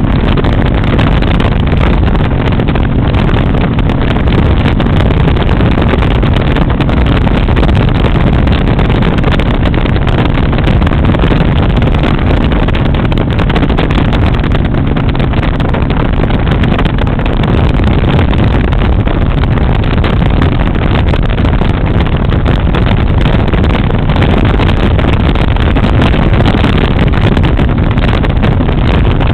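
Riding motorcycle at cruising speed: steady wind rushing over the microphone mixed with the drone of the engine and the road.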